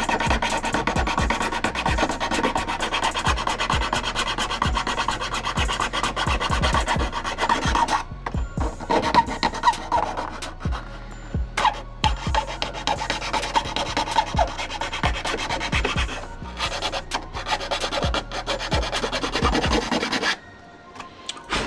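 Hand file rasping the edges of a hole cut in a plastic motorcycle fairing, in quick back-and-forth strokes with a few short pauses.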